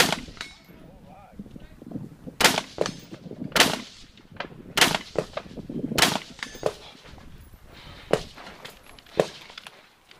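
Rifle shots fired one at a time during an IPSC rifle stage: about seven sharp reports, spaced unevenly one to two seconds apart.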